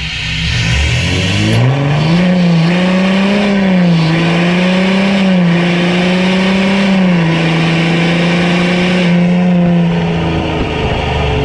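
2018 VW Amarok 3.0 V6 turbodiesel with a 76 mm straight-pipe exhaust, revved up sharply about a second in, held high with small rises and dips, then let fall back near the end.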